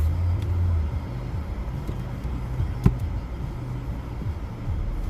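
Car driving slowly, heard from inside the cabin: a steady low engine and road rumble, with one sharp click about three seconds in.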